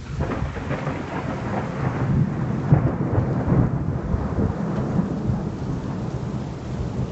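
Rolling thunder rumbling low, swelling just after the start and easing off near the end, over steady falling rain.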